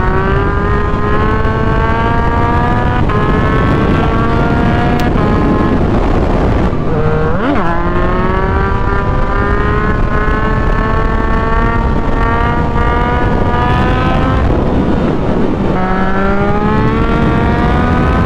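Yamaha MT-09's three-cylinder engine with a full aftermarket exhaust pulling through the gears under steady acceleration. Its pitch climbs slowly in each gear and drops at two upshifts, about six to seven seconds in and again about fifteen seconds in.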